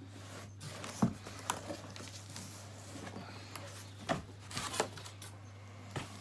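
Cardboard box being opened by hand: flaps folded back and a cardboard sheet lifted out, giving scattered knocks and scrapes of cardboard, about five sharp ones, over a faint steady low hum.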